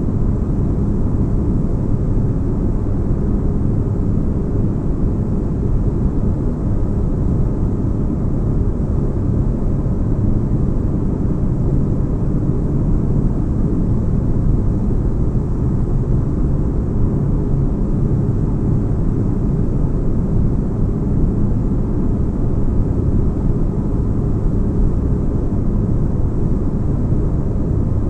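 Steady deep, bass-heavy rumbling hum of a synthesized spaceship interior ambience, a low engine-like drone that does not change.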